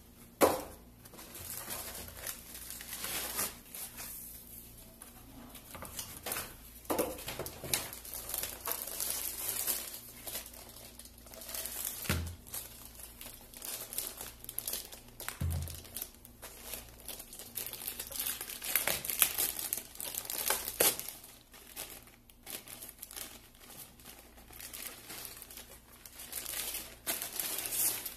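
Clear plastic bag and packaging crinkling and rustling in irregular bursts as a laptop is handled and slid out of its plastic sleeve, with a couple of soft thumps partway through.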